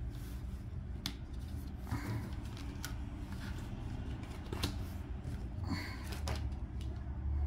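Cardboard oracle cards handled on a tabletop: light taps and short slides as cards are laid down, touched and picked up, over a low steady hum that grows louder near the end.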